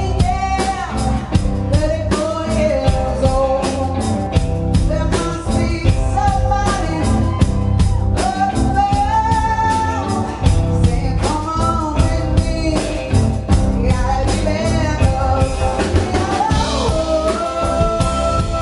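Live rock-blues band playing: a woman singing lead over bass guitar, electric guitars and a drum kit, with a steady beat. Near the end a single high note is held.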